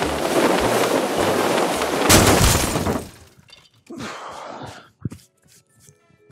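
Rushing wind sound effect, ended by a loud crash about two seconds in, then quiet cloth rustling and a click.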